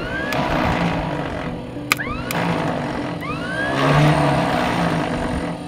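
Background music: held notes stepping from pitch to pitch, with a few swooping glides.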